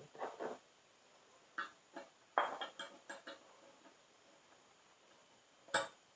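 Short clinks and knocks of small metal parts being handled and fitted together, scattered, with a quick cluster in the middle and one sharp click near the end.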